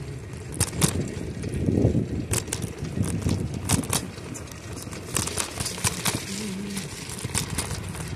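A bicycle rolling along a wet, leaf-strewn paved trail: wind rumbles on the microphone, and sharp clicks and crackles from the bike and its tyres come every fraction of a second.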